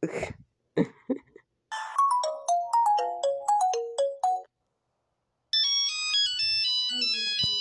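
Two Nokia ringtones played one after the other. The first, for the Nokia 8, is a melody of short, mostly falling notes. After a short gap comes a higher-pitched, quick beeping melody for the Nokia 2110. A few brief noises come just before the first tune.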